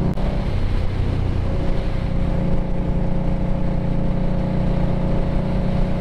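2020 Indian Scout Bobber Twenty's V-twin engine running steadily while the motorcycle is ridden.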